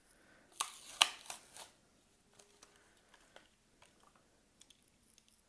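Hot Wheels car packaging, plastic blister and cardboard, being handled and opened by hand. A burst of sharp crackles and clicks comes about half a second to a second and a half in, then faint scattered clicks.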